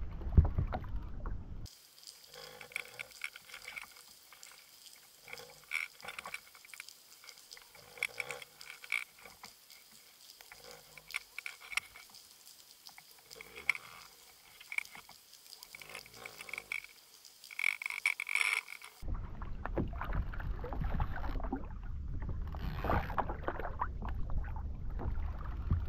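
Underwater sound from a camera rigged on the fishing line: a faint hiss with irregular clicks, knocks and brief tones. Before and after it, louder wind and water noise on the kayak's microphone, which sets in again about two-thirds of the way through.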